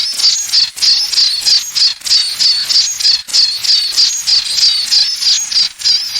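A high-pitched chirping, repeated evenly about two to three times a second, offered as a simulation of tinnitus ringing in the ears.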